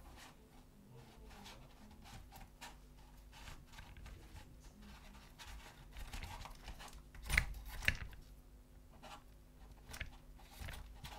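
Hands handling a stitched leather bag: faint rubbing and creaking of the leather with small scattered clicks, and two sharper clicks about half a second apart a little after the middle.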